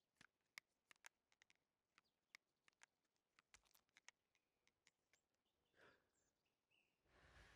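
Faint cartoon sound effects: scattered small ticks and clicks, then near the end a breathy blow through a soap-bubble wand.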